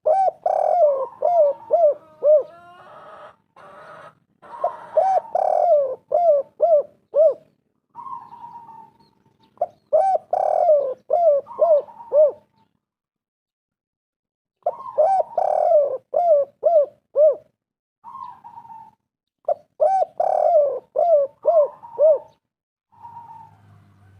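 Spotted doves cooing in repeated phrases, one about every five seconds, each a quick string of short rising-and-falling coos. A higher single coo sounds in the gaps between phrases.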